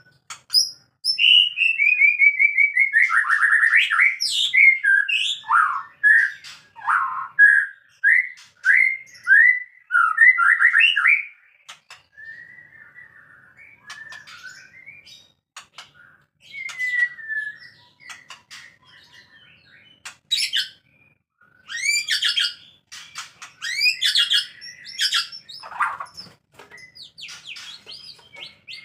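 White-rumped shama calling: a loud run of repeated falling whistled notes, then quieter scattered chirps, and a burst of varied sharp notes near the end.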